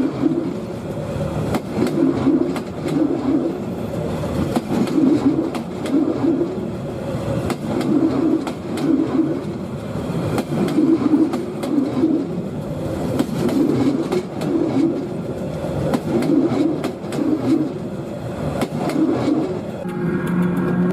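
Train running on rails, with a clickety-clack of paired beats repeating roughly every one and a half to two seconds over a continuous rumble.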